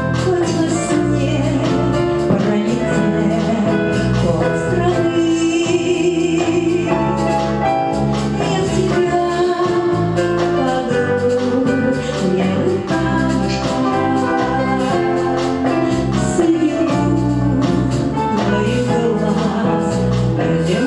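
A woman singing a song into a microphone over instrumental backing with a steady beat.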